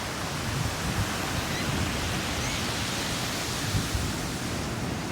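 Ocean surf washing steadily, swelling a little around the middle, with low irregular rumbles of wind on the microphone.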